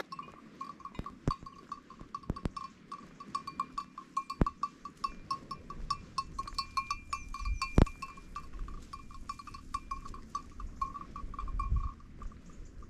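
Goat bells clinking unevenly and almost without pause as a small herd of goats walks across the road, with a few sharper knocks, the loudest about eight seconds in.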